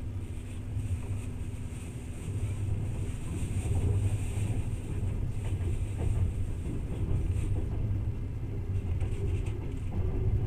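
Passenger train running on the rails, a steady low rumble heard from inside the carriage.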